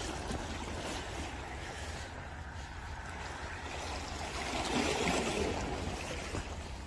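Steady rushing of sea and wind over a rock seawall, with wind rumbling on the microphone; it swells for about a second around five seconds in.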